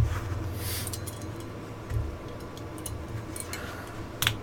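Small clicks and knocks of Glock pistol parts being handled during disassembly: a sharp click at the start, a softer knock about two seconds in, and another sharp click near the end, over a low steady hum.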